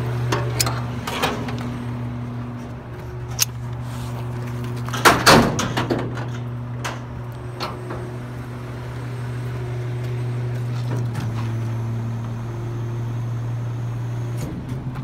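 Mack garbage truck's diesel engine idling steadily, with scattered metal clanks and rattles from the winch cable hook and chain against the steel dumpster. The loudest clanks come about five seconds in.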